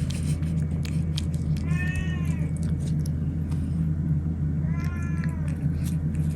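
A domestic cat meowing twice, two short meows that rise and fall in pitch about three seconds apart, over a steady low hum and scattered small clicks.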